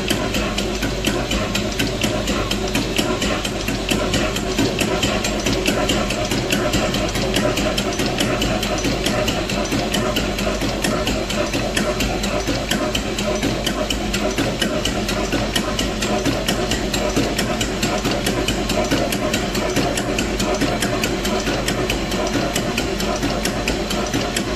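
Large old Dutch multi-cylinder diesel engine running steadily, its exposed overhead valve gear giving a rapid, even ticking clatter.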